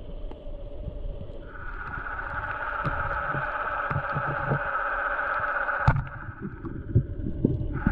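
Underwater, a band-powered wooden speargun fires with one sharp click about six seconds in, over a steady whine and muffled thumps from the diver moving in the water.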